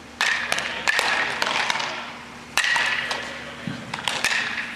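A rapid, irregular series of sharp cracks of baseballs hitting leather gloves and bats, several a second at times, each echoing off the hard walls of a large hall; a few cracks ring briefly.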